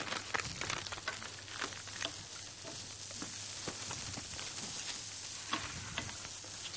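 Eggplant and onion frying in a pan: a steady sizzling hiss with scattered small crackles.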